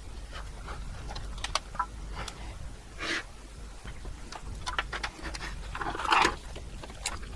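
Hands handling a flat ribbon cable and plugging its connector onto a controller board: scattered clicks, small knocks and rustling, the loudest burst a little after six seconds in.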